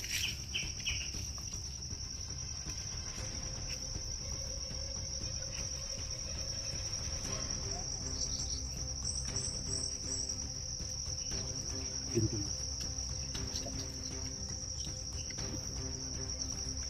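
Insects trilling in one steady, unbroken high-pitched note, over a low rumble, with a short louder sound about twelve seconds in.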